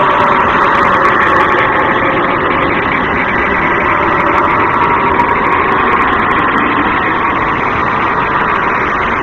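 Steady, dense rumbling drone with a hum and a faint crackle, an artificial space-ambient sound presented as the sound of the planet Epsilon Eridani b.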